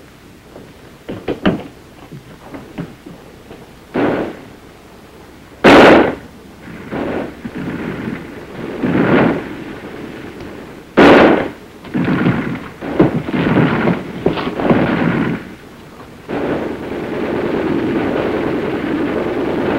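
Scattered gunfire of single shots and short bursts, with two loud reports about six and eleven seconds in and a cluster of shots soon after. A steady noise sets in near the end.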